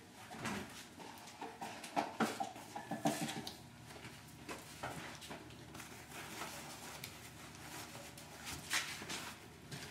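Faint kitchen handling sounds: scattered light knocks and rustles as things are moved about on a counter, with pages of a book being flipped near the end.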